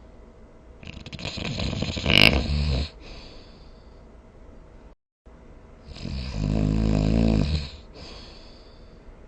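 A sleeping person snoring: two long, rattling snores about two seconds each, the first starting about a second in and the second about six seconds in. A brief dead gap between them marks a cut between recordings.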